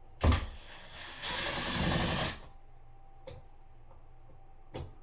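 A power drill/driver whirring in one burst of just over a second, driving a screw at the switch plate, after a sharp click.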